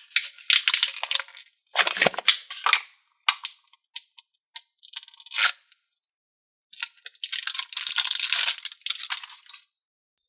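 Metallic glitter Brainy Putty being squished and pulled in the hands, crackling and popping with trapped air in irregular bursts separated by short silent gaps.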